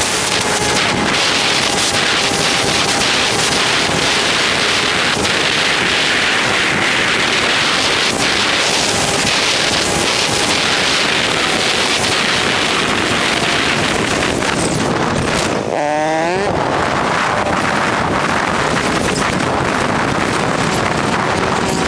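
Wind rushing over a helmet-mounted camera on a moving motorcycle, with the motorcycle engine's note faintly underneath, all sped up. About two-thirds of the way in, the wind noise drops away for a moment and the engine note sweeps quickly up and down.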